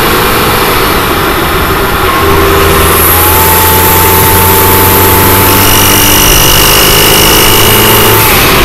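A 2018 Alfa Romeo Stelvio's 2.0-litre turbocharged four-cylinder engine pulling under load, close to the microphone in the engine bay. About three seconds in, a thin steady high whine comes in over the engine, joined by a higher tone about halfway, and both fall away near the end. This is the unexplained noise the owner gets only when the engine is pulled in a high gear from low revs up towards 3000 rpm; he has no error codes and it stops once past 3000 rpm.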